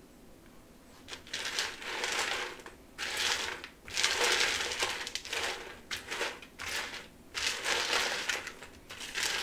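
Popcorn mix with pretzels, peanuts and candy corn, coated in chocolate drizzle, being stirred with a spatula in a bowl. The stirring noise comes in uneven strokes, starting about a second in.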